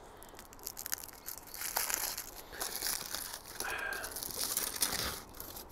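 Aluminium foil being peeled and crinkled off a glass beer bottle: an irregular crackling rustle that starts about half a second in and dies away near the end.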